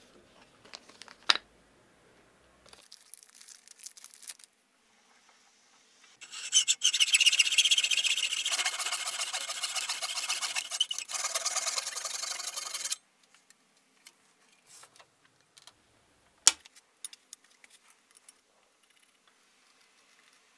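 A file is drawn back and forth along a steel knife blade clamped in a bench vise, a steady rasping for about six seconds in the middle. A single sharp click comes before it and another after.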